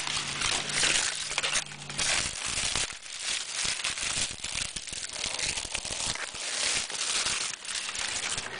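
Staghorn fern fronds rustling and crinkling close to the microphone as a hand rubs and pushes through them, the dry papery brown fronds crackling. The rustling comes in irregular rushes and never settles.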